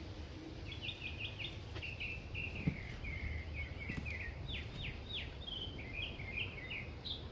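A small bird chirping in quick runs of short, high, downward-sliding notes over a steady low outdoor rumble, with two light knocks a few seconds in.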